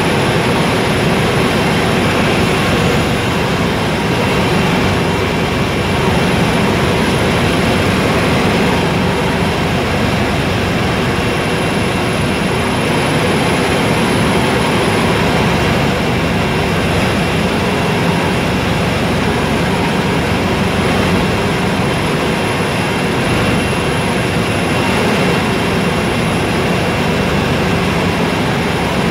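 Helicopter in flight heard from inside the passenger cabin: the steady, loud noise of engine and rotor, with a thin high whine running over it.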